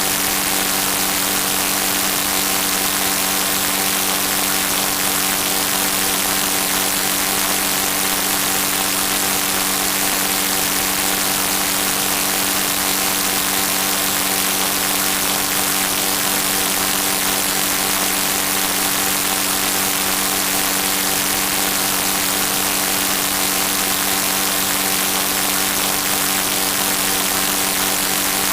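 Steady machine-like drone: an even hiss with a constant low hum of several tones, unchanging throughout.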